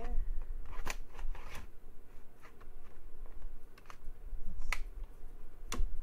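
A SATA hard drive caddy being slid into a ThinkPad T61's Ultrabay Slim slot: a handful of sharp clicks and scrapes spread over the seconds, the loudest two near the end, over a low rumble of handling.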